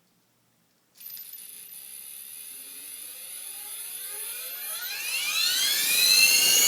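T-Rex 450 electric RC helicopter spooling up. A steady high whine comes on suddenly about a second in, then a stack of tones rises in pitch and grows louder as the motor and rotor come up to speed, levelling off near the end. The high-pitched whining is there even with the rotor shaft, motor, main gear and tail drive bearings already oiled.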